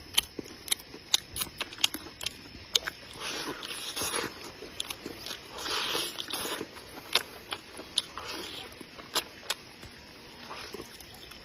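A person chewing and eating meat: many wet mouth clicks and smacks, with longer stretches of chewing noise in the middle.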